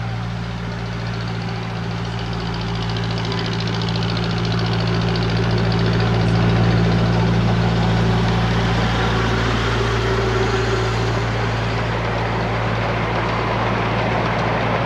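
Miniature railway train approaching and passing: the locomotive's engine runs with a steady, even hum that grows louder as it nears, loudest a little past halfway, as the passenger cars roll by.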